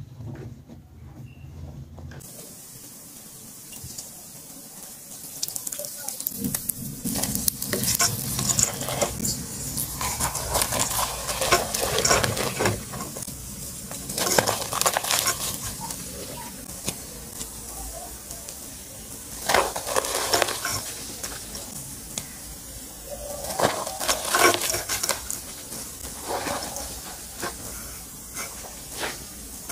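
Chalk blocks crushed and crumbled by hand in a bowl of water, crunching and crackling in irregular bursts. It is quieter for the first few seconds, and the crunching grows louder about six seconds in.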